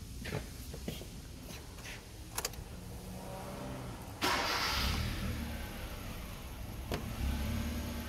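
A few clicks of a car door and cabin handling, then about halfway through the Hyundai Accent's engine is started and settles into a steady idle.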